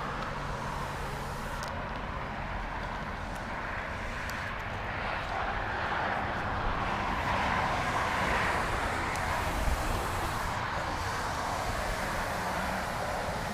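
Steady distant engine noise, swelling a little midway and easing off again.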